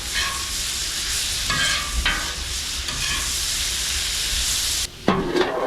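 Sliced vegetables sizzling loudly in bacon grease on a Blackstone flat-top griddle while metal spatulas toss them, with a few scrapes and clinks. The sizzle cuts off sharply near the end, followed by a few sharp knocks.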